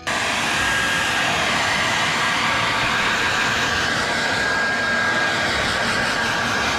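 Handheld hair dryer running steadily, blowing hot air onto freshly spray-painted motorcycle fairing to speed drying: an even rush of air with a faint fan whine.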